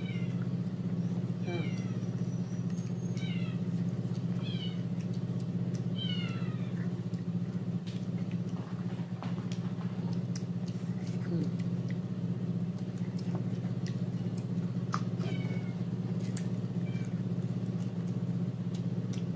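Short, high, falling animal calls in quick runs of three or four, repeated several times over a steady low hum.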